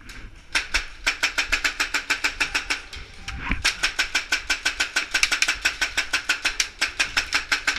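Airsoft gun firing on full auto: a rapid, even stream of shots that keeps going for several seconds, with a brief break about three and a half seconds in.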